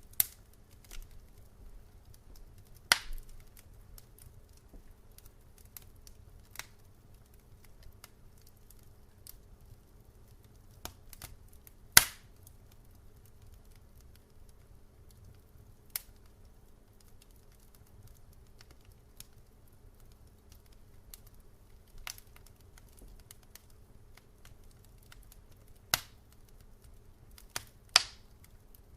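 Wood fire crackling in a fireplace: sharp, scattered pops a few seconds apart over a faint low background. The loudest pop comes about twelve seconds in, with two more near the end.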